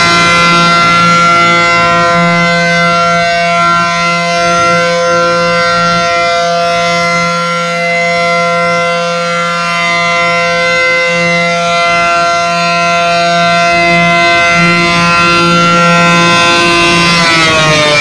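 ACA Allertor 125 rotating two-horn civil-defense siren sounding a steady tone at full pitch during a test. The loudness swells and dips gently as the horns turn. Near the end the pitch starts to fall as the siren winds down.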